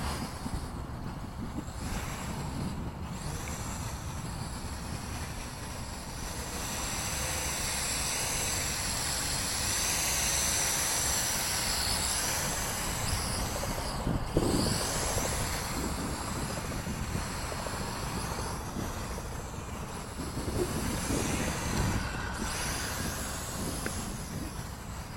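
Small NIHUI U807 toy quadcopter's motors and propellers whining, with wind buffeting the microphone. The whine grows louder and wavers in pitch in the middle, as the drone passes close, and there is a short knock a little after that.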